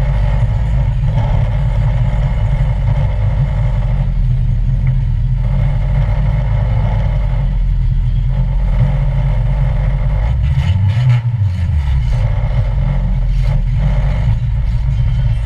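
An old stock car's engine running loud, heard from inside its stripped cabin. It keeps a steady rumble, with a short spell of rattling and knocks and a change in the engine note about ten to eleven seconds in.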